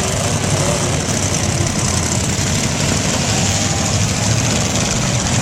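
Demolition derby car engines running, a loud, steady mechanical din.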